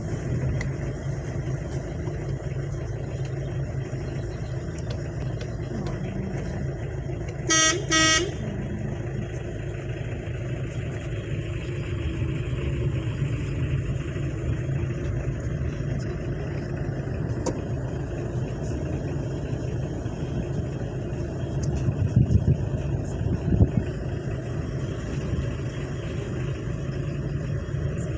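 Car interior on the move: steady engine and road noise, with two short toots of the car's horn about half a second apart near eight seconds in. A few low thumps come later.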